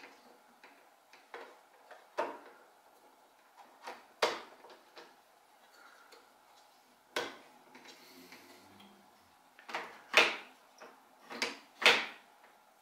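Irregular sharp clicks and knocks of 3D-printer frame parts being handled and pressed into place on the Z-axis end of a Prusa i3 kit, the two loudest near the end.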